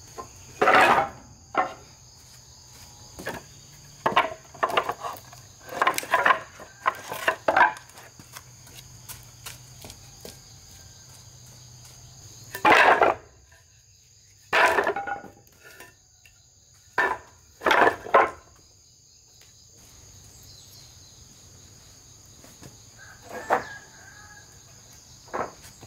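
Steady chorus of crickets and other insects, broken by irregular, loud knocks and thuds of wood from carpentry work. The knocks come in clusters, about sixteen in all.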